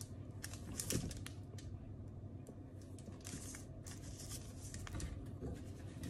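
Crumbly white microwaved chunks crunching and crumbling as they are chewed and broken apart by hand: a run of sharp crackles and snaps, loudest about a second in.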